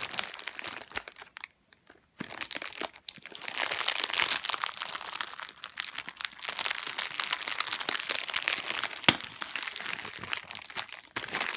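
The red foil and clear cellophane wrapping of a giant Lindt Lindor chocolate ball crinkling and crackling continuously as it is handled for unwrapping. There is a short pause near the start and one sharp crack later on.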